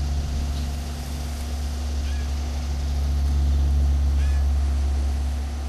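A steady low hum, with a blue jay's faint short calls twice, about two seconds apart.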